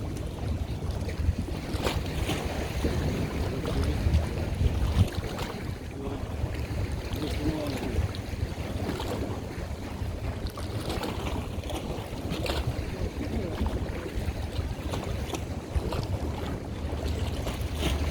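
Wind buffeting the microphone with a steady low rumble, over a wash of water and waves, with scattered faint clicks.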